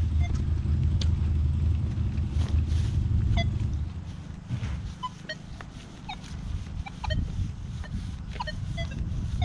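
Low engine rumble of a road vehicle, loud for the first few seconds and dying away about four seconds in. After it come scattered short, high blips.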